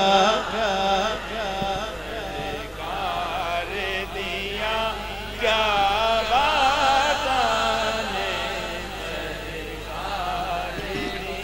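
A man singing a Punjabi naat into a microphone, drawing out long, wavering, ornamented phrases with short breaks between them.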